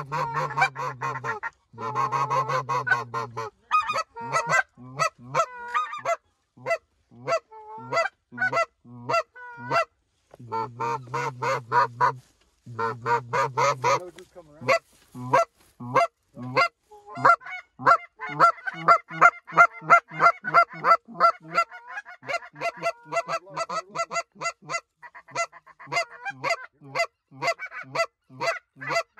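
White-fronted goose (specklebelly) calling: a rapid run of short, high yelping notes, several a second, with a few longer stretches of unbroken calling.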